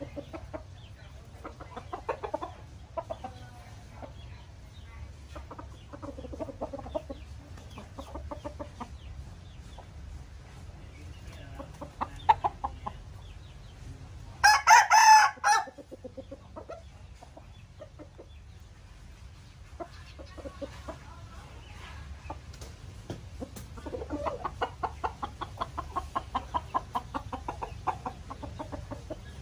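Burmese–Malay cross gamecock roosters clucking in short runs, with one loud crow lasting about a second and a half about halfway through. Near the end comes a quick run of short, evenly spaced clucks.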